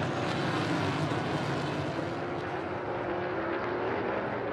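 NASCAR Cup stock car V8 engines running at race speed: a steady engine drone whose pitch climbs slowly near the end.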